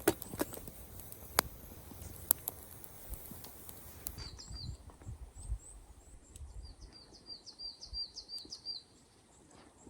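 Small twig fire crackling in a compact wood stove, with sharp pops, for about the first four seconds. After that it cuts away to a small bird chirping in quick high runs of notes.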